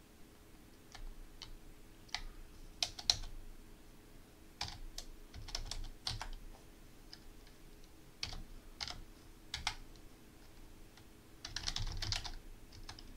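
Computer keyboard typing: irregular single keystrokes with pauses between them, then a quick run of keys near the end.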